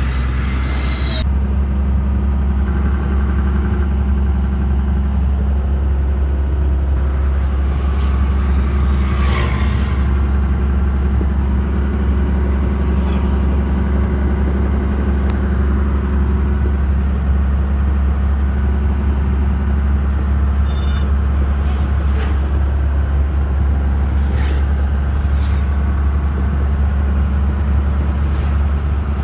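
An empty oil tanker truck running at road speed, heard from inside the cab: a steady low engine drone with road noise.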